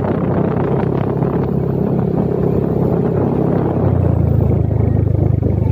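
Motorcycle engine running steadily under way, heard from the rider's seat. The engine note shifts and grows slightly louder about four seconds in.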